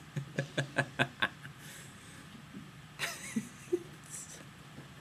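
A young man laughing: a quick run of about six short bursts in the first second and a half, then a brief breathy sound about three seconds in.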